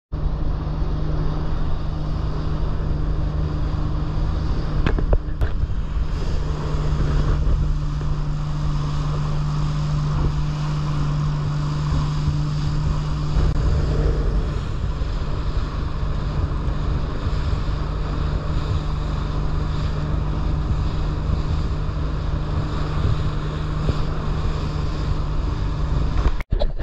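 A fishing boat's engine running steadily under way, a constant low hum, with wind buffeting the microphone and water noise. The sound cuts out for a moment near the end.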